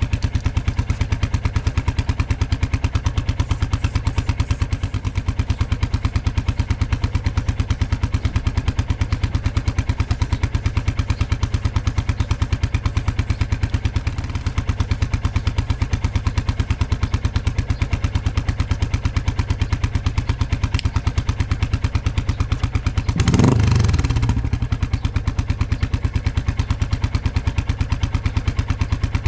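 Royal Enfield Classic 350's single-cylinder engine idling through a Hitchcocks free-flow stainless exhaust with its baffle fitted, a steady even beat of firing pulses, run to heat and cure fresh black paint on the pipe. About 23 seconds in there is a brief louder surge that falls in pitch as it settles back.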